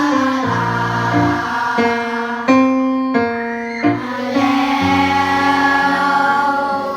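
Voices singing a vocal warm-up exercise with keyboard accompaniment: held notes that move up and down in steps, with the keyboard sounding the notes.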